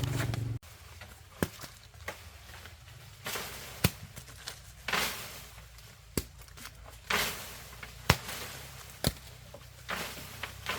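A steady hum stops abruptly about half a second in. Irregular sharp clicks and knocks follow, mixed with short rustling swishes, like objects being handled.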